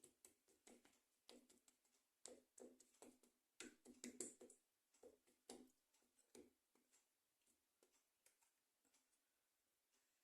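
Faint, irregular light taps and clicks, a few each second then thinning out near the end, as almond slivers are set by hand onto the patisa.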